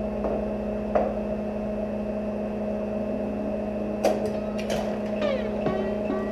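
Steady electrical hum from a hot-wire foam cutter's power supply while it trims Styrofoam, with a few sharp clicks about a second in and again around four seconds.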